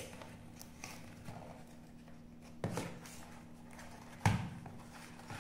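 A small cardboard retail box being handled and opened, its flap pulled back and the contents drawn out: three short knocks and rustles, the loudest about four seconds in, over a faint steady low hum.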